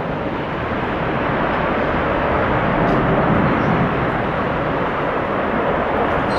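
Boeing 787 Dreamliner's jet engines during landing: a steady rushing roar that swells slightly about three seconds in, mixed with gusty wind noise.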